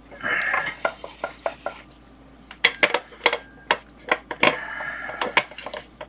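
Small metal tools clinking and scraping at a soldering bench: scratchy rubbing for the first second and a half, then a quick run of sharp clicks, then more scratching with a few clicks.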